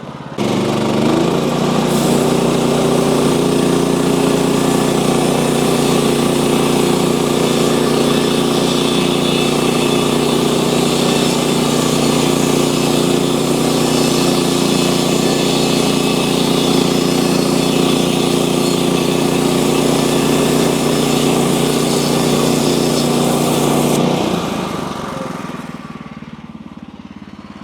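Portable sawmill running at full throttle while the blade saws through a log, a steady engine drone under a hiss of cutting. About 24 seconds in it drops back to a lower idle.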